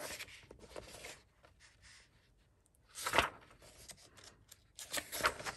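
Paper pages of a coloring book being turned and handled: a light rustle at first, then a brief swish of paper about three seconds in and another near the end.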